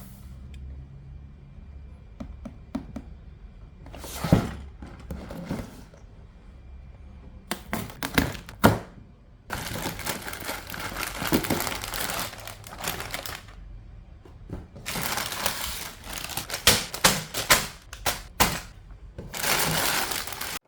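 Lego pieces and plastic parts bags being handled: scattered sharp clicks and knocks of plastic bricks, with stretches of crinkling plastic.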